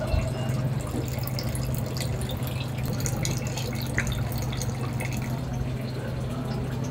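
Kitchen ambience: a steady low hum with a few faint, scattered clicks and taps.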